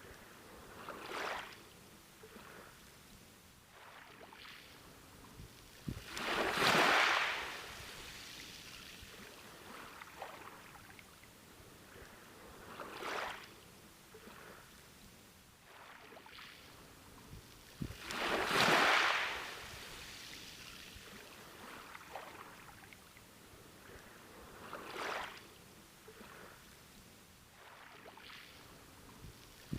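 Sea waves breaking on a beach, each one a rushing, hissing surge of surf that builds and fades. Two larger waves break about twelve seconds apart, with smaller ones washing in between.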